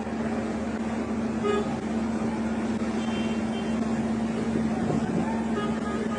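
Traffic on a flooded street: vehicle engines running with a steady low hum under a haze of street noise, and a few faint, brief horn toots.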